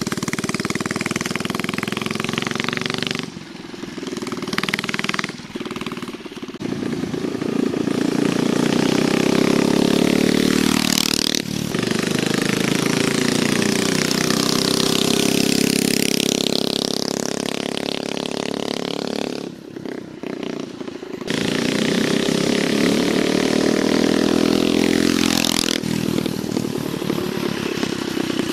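A homemade scooter's 79cc single-cylinder engine runs through a custom open header pipe, revving up and easing off as it is ridden. It passes close twice, its pitch sweeping down each time, with quieter lulls in between.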